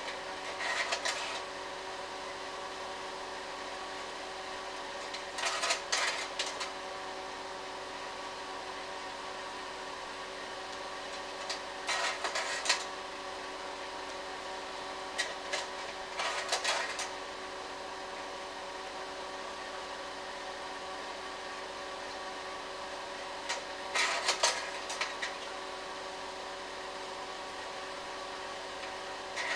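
Slide projector running with a steady fan-and-motor hum. Its slide-change mechanism clatters five times, several seconds apart, each time a new slide drops into place.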